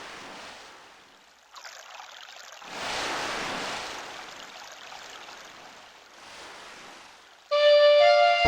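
Rushing, surf-like noise that swells and fades four times, like a waves sound effect. About seven and a half seconds in, a Yamaha PSR-S950 arranger keyboard starts a slow melody on a flute-like voice, and a bass comes in at the very end.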